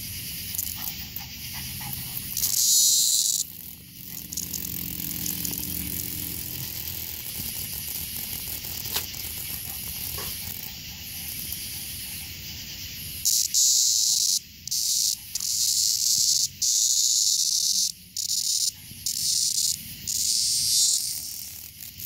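A cicada held between the fingers buzzing loudly, the distress call of a captured cicada: one short burst about three seconds in, then from about thirteen seconds a run of long buzzes broken by brief pauses, over a fainter steady high hiss.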